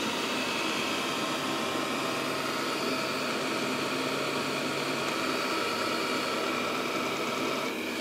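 Xiaomi Mi Robot Vacuum Cleaner running: a steady whir of its fan and motors with a faint whine, as it turns beside its charging dock. The whine stops near the end.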